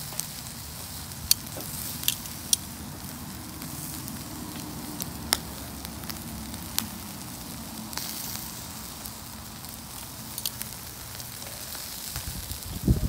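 Chicken drumsticks sizzling on a barbecue grill: a steady hiss broken by scattered sharp pops and crackles.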